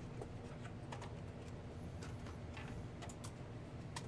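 Scattered light clicks and taps from the UNISYS PowerPort 386 laptop's keyboard as it is handled and fitted back into the case, over a steady low hum.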